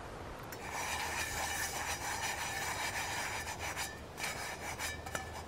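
Rasping scrape in a metal frying pan that starts about half a second in and eases off after about four seconds, followed by a few light clicks.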